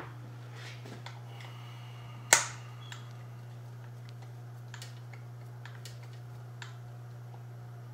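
Clicks from a hand torque driver tightening screws into an RC truck chassis: a sharp click at the start, a loud one about two seconds in, then a few faint ticks. A steady low hum underlies it.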